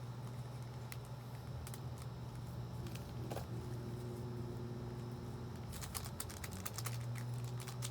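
A steady low hum, with a fast run of light clicks starting about two seconds before the end.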